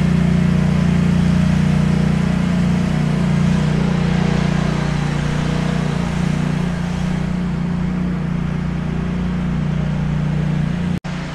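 Ford Transit Custom van's diesel engine idling steadily, with a sudden brief dropout near the end.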